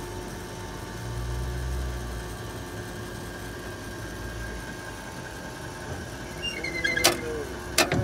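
Caterpillar 980G wheel loader's diesel engine running steadily, with a low swell in its note a second or so in. Two sharp knocks come near the end.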